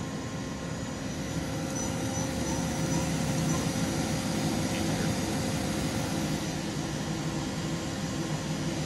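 Daewoo Lynx 200B CNC lathe spindle running at speed, a steady mechanical hum with a few faint steady tones over it. The spindle is being stepped up from about 1000 to 1500 RPM, and the hum grows a little louder a couple of seconds in.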